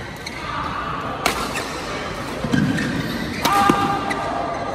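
Badminton rally: two sharp racket strikes on a shuttlecock about two seconds apart, with heavy footfalls on the court floor between and after them.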